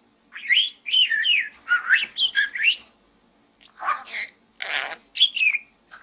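Budgerigar chattering: a quick run of rising and falling chirps and whistles, then, after a short pause, a few harsh scratchy calls and a falling chirp.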